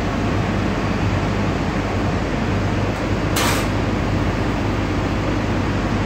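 Steady, loud industrial machinery and rushing-air noise with a constant low hum, and a brief hiss about three and a half seconds in.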